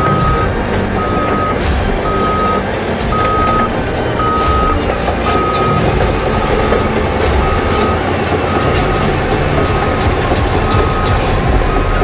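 Caterpillar crawler dozer backing up, its reverse alarm beeping about once a second over the steady diesel engine and track noise, with a few sharp clanks.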